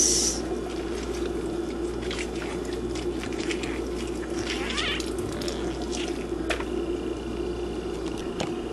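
Quiet kitchen background with a steady low hum, and a few faint clicks and rustles as the plastic bowl of fish is handled and set down in the sink.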